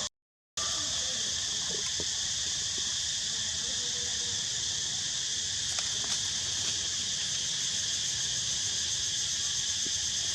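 Steady, shrill insect chorus, a continuous high-pitched buzz, which cuts out for about half a second near the start.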